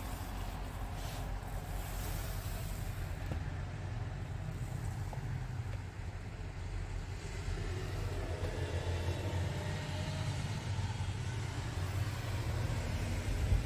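Scania R tractor unit's engine idling steadily, a low hum heard from inside the cab.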